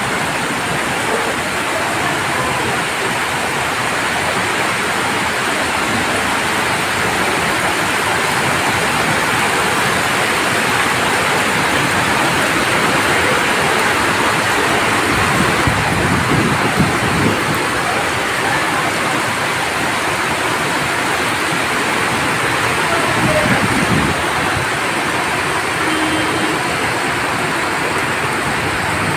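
Rain falling steadily: a dense, even hiss of rain.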